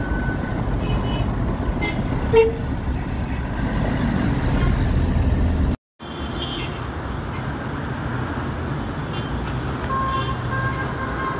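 Steady road-traffic noise with car horns tooting briefly a few times, and a short loud sound about two and a half seconds in. The audio cuts out for a moment about six seconds in.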